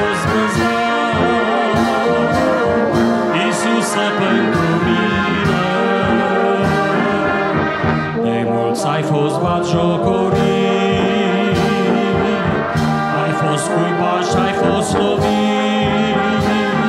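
Church brass band of trumpets, trombones and tubas playing a slow hymn in sustained, changing chords.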